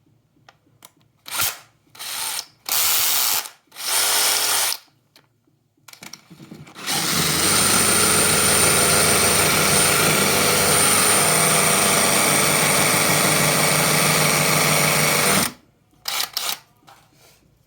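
Cordless drill's motor run in several short trigger bursts, one winding down in pitch, then held at a steady speed for about eight seconds before cutting off, followed by two brief blips.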